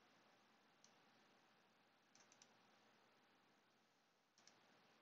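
Near silence: a faint steady hiss with a few soft clicks from computer use. There is one click about a second in, three in quick succession a little after two seconds, and two more near the end.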